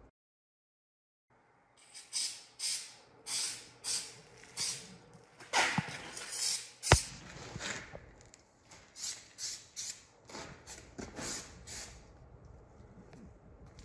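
After a second of silence, an aerosol can of Rust Check is sprayed onto a rusty arbor in a dozen or so short hissing squirts, with one sharp knock about seven seconds in.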